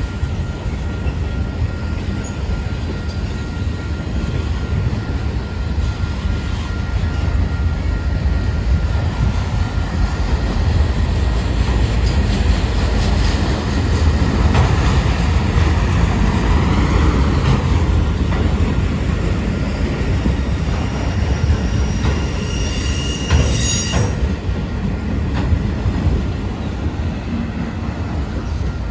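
Freight train of autorack cars rolling past: a loud steady rumble of steel wheels on rail with scattered clicks over the rail joints and a faint steady wheel squeal. A short, high wheel screech breaks out about 23 seconds in.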